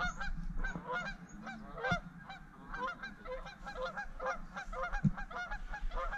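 A flock of Canada geese honking, many short calls overlapping in a steady chatter. A couple of low thumps come about two and five seconds in.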